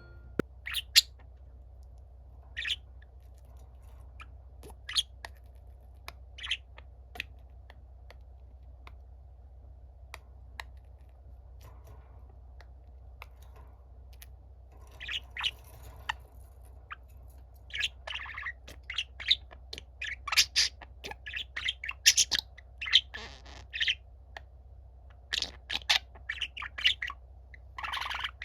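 Budgerigars chirping and warbling: scattered single chirps at first, growing busier and more continuous from about halfway through. A steady low hum runs underneath.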